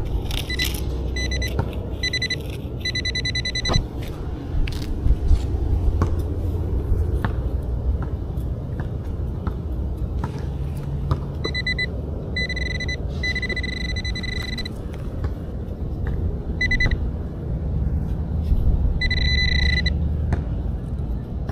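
Nokta AccuPoint pinpointer beeping in bursts of one steady high tone, some short and one held over a second, one run breaking into rapid pulses, as it picks up coins in the dug hole. A steady low rumble and a few light clicks run underneath.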